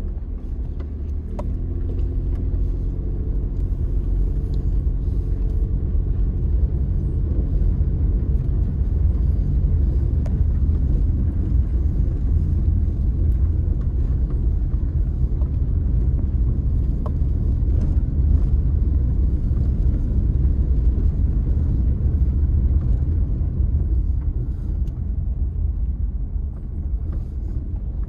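Car driving along a rough dirt road: a steady, loud low rumble of engine and tyres, with a steady engine hum that fades out after the first several seconds.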